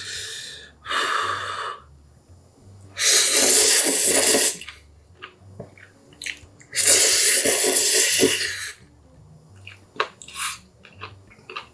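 A man slurping Chapagetti noodles: two short slurps at the start, then two long, loud slurps of about a second and a half to two seconds each. Wet chewing follows, with a brief slurp near the end.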